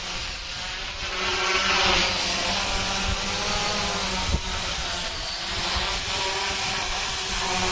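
Hexacopter drone's electric motors and propellers buzzing in flight, a steady multi-tone whine that grows louder about a second in.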